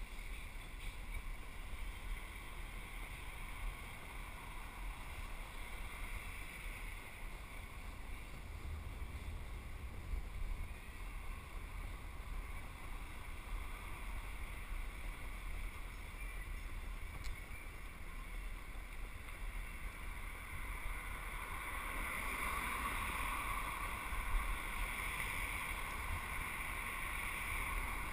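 Wind rumbling on the microphone of a camera riding along on a bicycle, with a higher rushing noise that grows louder over the last several seconds.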